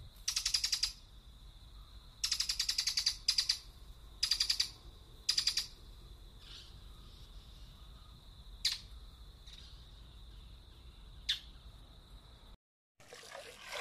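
Added bird-chirping sound effect: several quick trilled bursts of high chirps in the first half, then a few single chirps spaced seconds apart, over a steady high-pitched tone.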